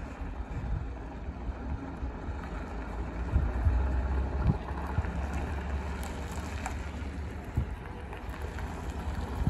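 Vintage Leyland single-deck bus's diesel engine running as the bus pulls slowly across open tarmac and turns toward the microphone, with wind buffeting the microphone in gusts.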